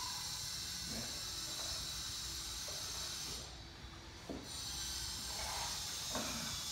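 Steady hiss that briefly drops out a little past the middle, with a few faint scattered taps as a puppy walks on a hardwood floor.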